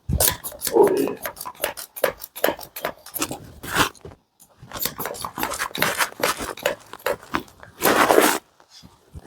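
Hands working on a patient during chiropractic treatment: an irregular run of quick taps, clicks and rubbing, with a louder rush of noise near the end.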